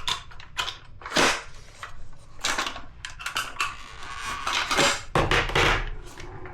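A 12-gauge shotgun drum magazine and shells being handled: irregular clicks and clacks as a stuck shell is worked in the drum.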